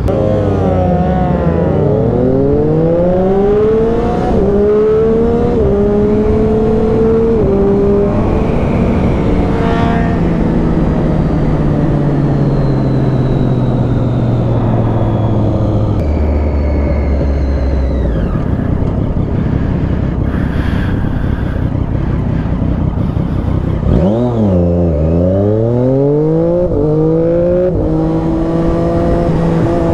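Triumph Daytona 675's three-cylinder engine pulling away and climbing through the gears, each upshift a drop in pitch. It then cruises with the revs slowly sinking, slows sharply about three-quarters in, and accelerates again through a couple of quick gear changes, over steady wind rush.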